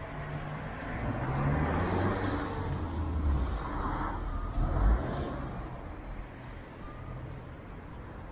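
A motor vehicle passing close by on the street, its engine and tyre noise swelling and then fading. There is a brief low thump at its loudest point, about five seconds in.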